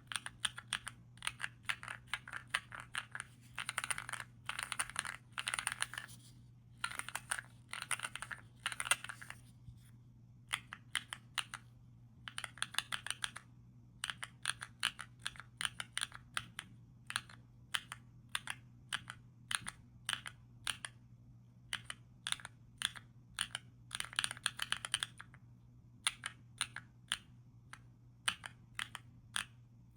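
Creamy Epomaker Zebra mechanical keyboard switches on a KEEBS Pad being typed on, with dense fast runs of keystrokes between sparser single presses.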